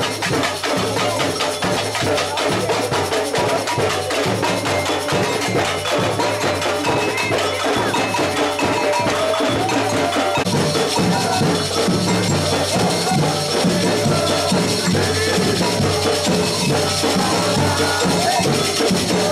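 Samba percussion band (batucada) playing a fast, steady rhythm on drums and shakers, the shaker rattle growing stronger about halfway through.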